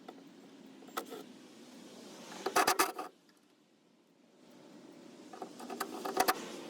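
Small metal parts and tools clinking and rattling during hand work on car wiring: a single click about a second in, then two short flurries of metallic clinks, about two and a half and six seconds in.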